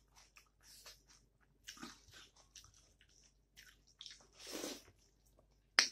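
Close-up chewing of a mouthful of rice and curry eaten by hand, with wet mouth clicks and smacks scattered through and one sharp smack near the end.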